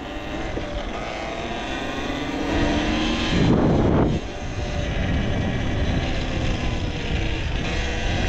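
Talaria Sting R electric dirt bike on the move, its motor whine rising and falling in pitch with speed over wind noise on the camera's microphone. A louder rush of noise about three seconds in stops abruptly a second later.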